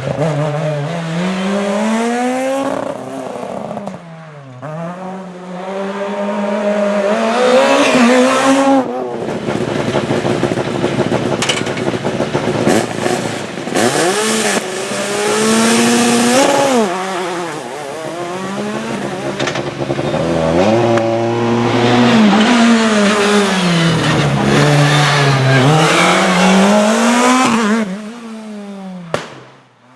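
Rally cars at full stage speed, their engines revving hard and rising and falling in pitch with each gear change and corner. The sound drops away near the end.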